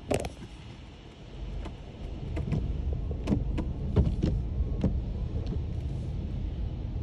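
Steady low rumble of a car wash bay heard from inside a car, growing louder about two seconds in, with scattered knocks and clicks.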